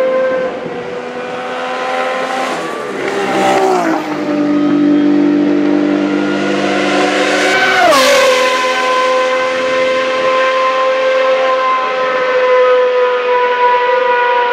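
Ferrari Formula 1 car's engine at high revs, accelerating hard. Its pitch climbs and then drops sharply twice, about three and a half and eight seconds in, the second drop as the car passes by. It then runs on at a steady high pitch as the car pulls away down the straight.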